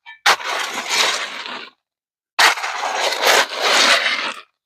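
Concrete mix being scraped and scooped into a hole with a hand tool: two long gritty scrapes, the first starting just after a sharp click and the second about two seconds in.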